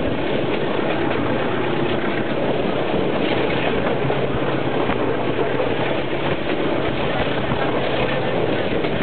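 A train running along the track: the GE C18-7i diesel locomotive's engine hums steadily under a constant rumble of wheels on rail, with an occasional click from the rail joints, heard from on board.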